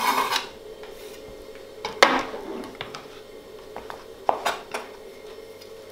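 Chef's knife cutting through raw turnip and knocking on a plastic cutting board: a few separate chops, the loudest about two seconds in, then several lighter taps a little after four seconds.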